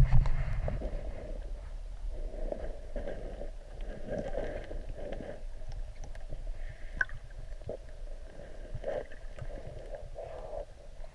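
Muffled underwater sound from a camera submerged in a river: a low rumbling and gurgling of moving water, with a louder knock at the start and a few faint clicks.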